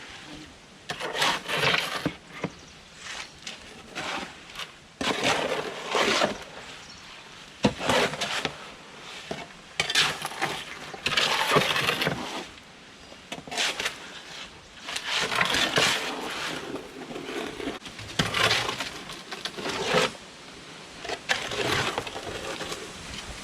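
Repeated scraping and rattling of loose, gritty material, in a dozen or so irregular bursts each a second or two long.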